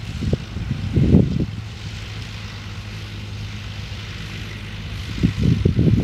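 Ferguson TEA-20 tractor's four-cylinder petrol engine running steadily under load while ploughing, a constant low hum. Irregular low buffeting rises over it in the first second or so and again near the end.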